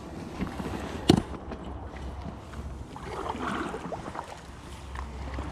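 Handling noise around an inflatable kayak: one sharp knock about a second in, then softer shuffling sounds, over a steady low rumble.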